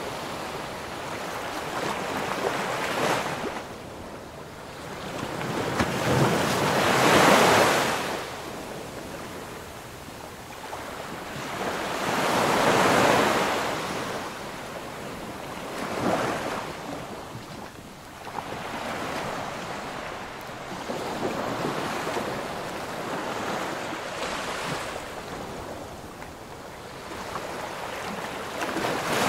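Small waves washing in, each surge of rushing water swelling and fading every three to five seconds, with wind over the microphone. The loudest surges come about seven and thirteen seconds in.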